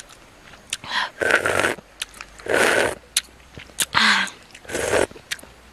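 Soup being slurped from a shell spoon: four slurps in a row about a second apart, with small mouth clicks between them.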